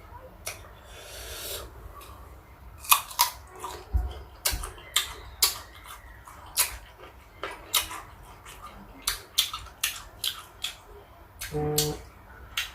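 Crisp, irregular crunching and clicking of someone biting and chewing raw sour fruit, a few crunches a second, with a brief voiced sound just before the end.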